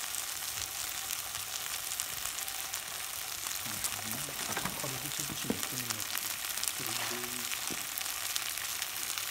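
Chunks of meat sizzling in a hot frying pan over a rocket stove: a steady, dense hiss with many small crackles and pops.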